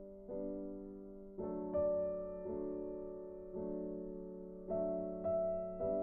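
Background music: slow, soft piano chords, a new chord struck about once a second and left to fade.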